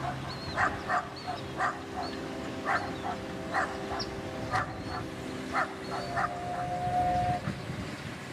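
Canada geese honking, short calls repeated about once a second, over a steady low hum. About six seconds in, a steady held tone sounds for just over a second.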